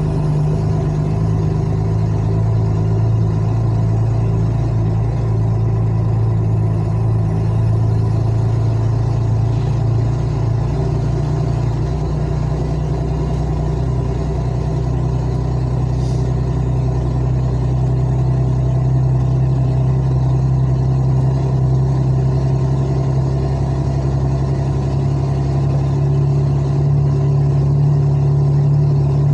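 Truck's diesel engine running steadily in slow traffic, a loud low drone whose pitch shifts slightly partway through.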